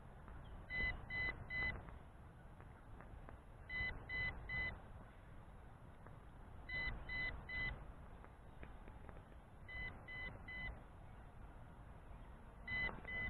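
Low-battery warning beeps from an MJX Bugs 5W drone's radio controller: three short, high beeps repeated about every three seconds.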